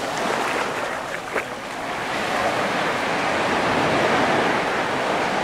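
Mediterranean surf washing onto a sand beach, a steady rush of breaking waves that builds to a peak about four seconds in.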